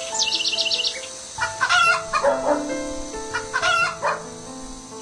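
Roosters crowing, with two loud crows about one and a half and three and a half seconds in, and a quick run of high chirps near the start. These play over background music with long held flute-like notes.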